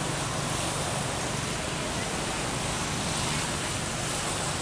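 Steady rushing outdoor background noise with no distinct sound standing out; no monkey calls are heard.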